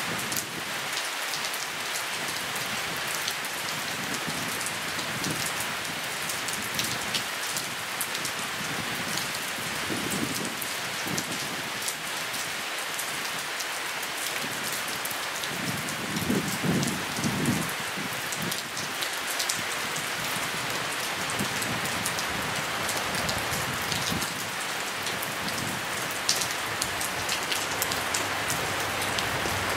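Steady rain falling, with scattered sharp ticks of drops striking close by. A low rumble swells a few times, most strongly about halfway through.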